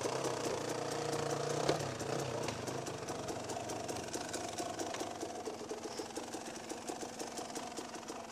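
Dirt bike engine putting along at low revs with even firing pulses. It pulls a little harder for the first couple of seconds, and there is a single sharp knock a little under two seconds in.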